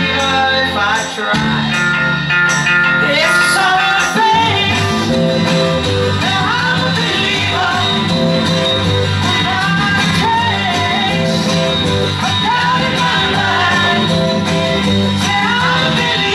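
Music playing throughout: a song with steady held notes and sliding pitches.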